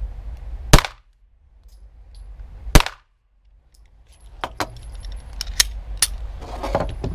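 Two shots from a Glock 9×19 mm pistol about two seconds apart, each loud enough to clip, and the recording drops to dead quiet for a moment after each. Several fainter sharp cracks follow in the last few seconds.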